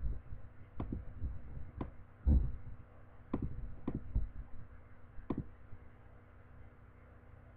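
A handful of sharp clicks at irregular intervals from computer keys or mouse being used, with two dull thumps, one right at the start and a louder one just past two seconds in; the last five or so seconds are quieter.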